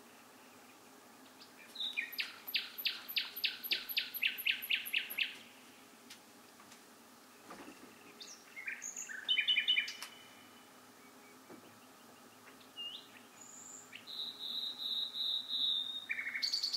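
A songbird singing in separate phrases over faint steady background noise. First comes a run of about a dozen loud repeated notes, then after a pause a short phrase of varied whistles and trills, and near the end a third phrase ending in a rapid trill.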